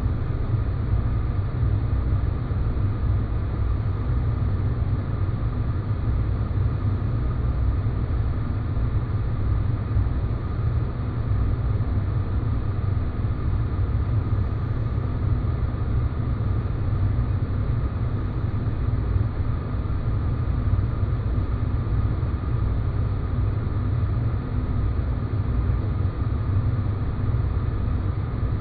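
Sci-fi space-planet ambience sound effect: a steady, deep noise drone with faint held tones above it and no distinct events.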